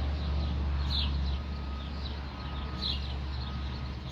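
A bird chirping, short sharp calls repeated every one and a half to two seconds, over a steady low outdoor rumble.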